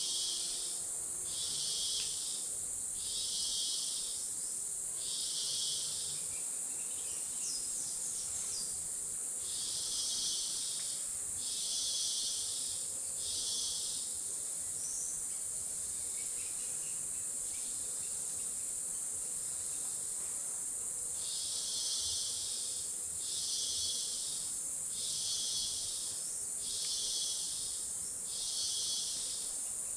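Lowland tropical rainforest insect chorus: a steady high-pitched hiss of insects, over which another insect calls in pulses about a second long, spaced about a second and a half apart, in runs of three to five with pauses of several seconds between.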